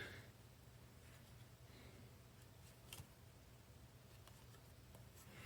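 Near silence: room tone with a faint hum, and one faint click about three seconds in.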